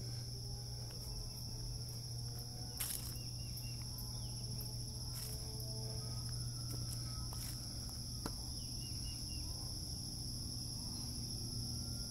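Steady, high-pitched chorus of insects trilling, with a few faint clicks scattered through it.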